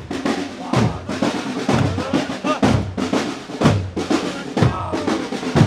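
Drums beating a steady marching cadence, a heavy stroke about once a second with lighter snare-like strokes in between.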